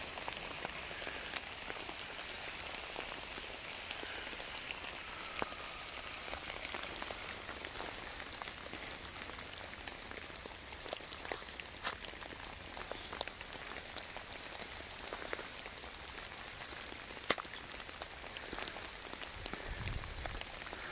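Steady rain falling on leaves and leaf litter, an even patter with many sharp individual drop ticks scattered through it.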